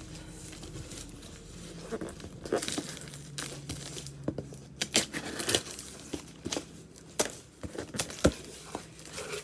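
Cardboard shipping box being opened and handled by hand: irregular crinkling, tearing and sharp knocks of the packaging.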